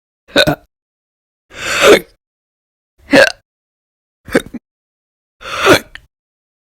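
A woman hiccuping loudly and repeatedly, five hiccups a second or so apart. Some are short and sharp, and two are drawn out with a rush of breath that builds into the hiccup.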